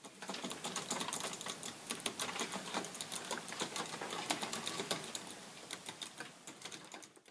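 Fast touch-typing on a computer keyboard: a dense, uneven run of key clicks that fades out near the end.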